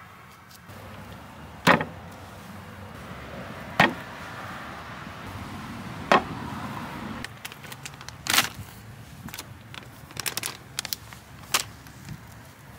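Bottles set down one after another on a wooden table, a sharp knock each time, five in all, with lighter clatter between them, over a steady background hum.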